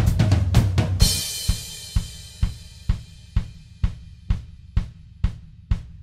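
Background music: a band passage with bass and guitar ends in a cymbal crash about a second in, then a lone drum beat keeps time at about two hits a second while the crash rings away.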